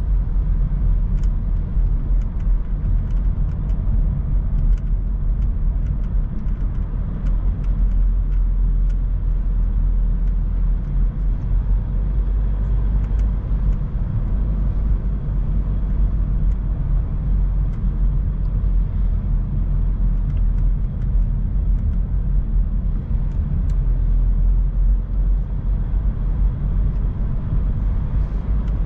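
Car driving at a steady speed: an even low road rumble with faint, scattered ticks throughout.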